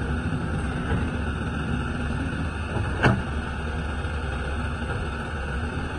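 Hyundai R210W-7 wheeled excavator's diesel engine running steadily while the boom and bucket work. A single sharp knock comes about three seconds in.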